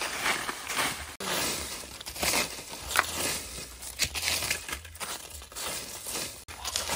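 Dry fallen leaves crunching and rustling in irregular bursts as they are stepped on and pushed about with a wooden stick, with one louder crackle about three seconds in.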